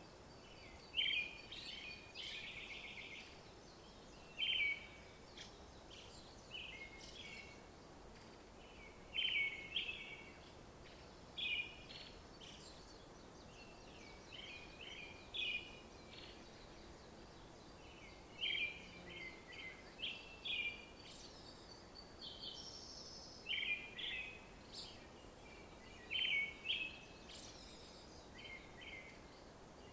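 A songbird singing short chirping phrases over and over, one every second or two, over a faint steady background hiss.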